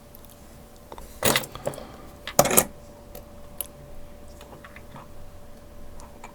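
Metal clinks and knocks from a Master Lock Pro Series 6321 padlock and lock picking tools being handled: two louder clattering knocks about a second and two and a half seconds in, then scattered light ticks. A faint steady hum runs underneath.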